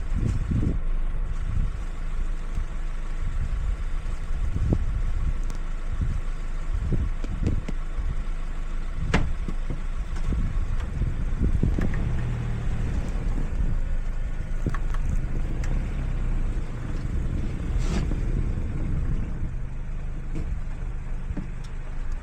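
Car engine running steadily, with scattered low thumps and a few sharp clicks over it.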